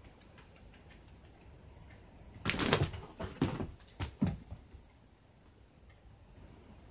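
A cat leaping at a wand toy against a sliding paper door: a cluster of thumps and scrabbling, starting about two and a half seconds in and lasting about two seconds.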